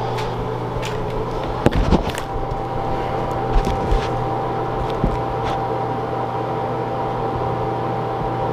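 A steady low mechanical hum with a few short knocks and footfalls as bare feet step onto a digital bathroom scale, most of them about two seconds in. A thin steady whine starts at about the same time and holds.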